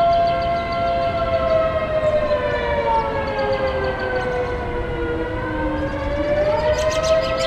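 Several outdoor civil-defense air raid sirens sound across town at once. Steady tones hold while one siren's pitch falls for about three seconds and climbs back up near the end. This is the wavering signal used both to summon the volunteer fire department and to warn of imminent danger, and the listener takes it for the imminent danger signal. A run of short high chirps comes in near the end.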